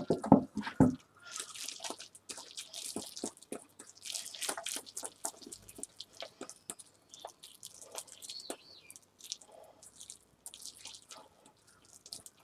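A hand kneading a wet raw ground-chicken mixture in a stainless steel bowl: irregular squishing and smacking, with many short sharp clicks.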